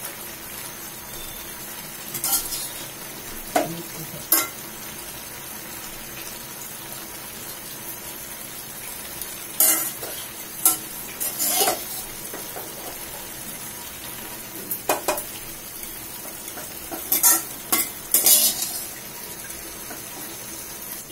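A metal spoon clinking and scraping against a frying pan in several short bursts as vegetables are spooned onto rice, over the steady bubbling hiss of the rice simmering in water.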